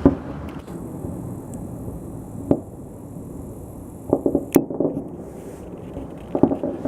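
Fireworks salute going off: a bang at the start, another about two and a half seconds in, a quick cluster of cracks just after four seconds and another cluster near the end, over a steady low rumble.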